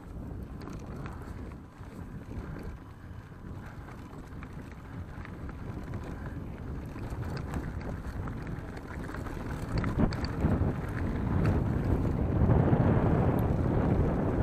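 Mountain bike riding along a dirt forest trail: tyres rolling over the ground with wind noise on the microphone and small clicks and rattles from the bike. The rush grows clearly louder over the last few seconds.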